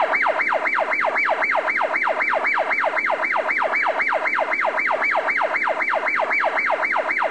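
Siren in a fast yelp: a rapid rise and falling sweep in pitch, repeated about four or five times a second, steady and unbroken.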